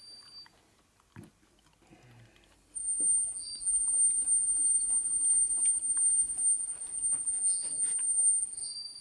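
High-pitched squeal of a Harley crankshaft flywheel assembly turning by hand between the truing stand's centers. It starts about three seconds in, holds a steady pitch with a fainter lower tone over a low rumble, and fades near the end. A single light knock comes about a second in.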